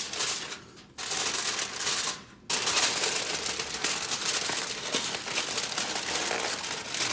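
Aluminium foil crinkling and crackling as it is folded and crimped by hand into a wrap, with two brief pauses in the first few seconds.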